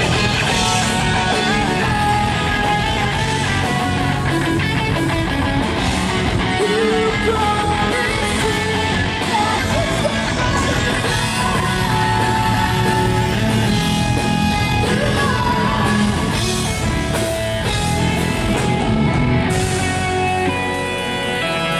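Rock band playing a song at a sound check: singing over guitar, loud and continuous.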